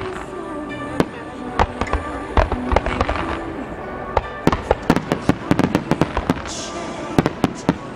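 Starmine fireworks barrage: a rapid, irregular volley of sharp bangs, several a second at times, with music playing underneath.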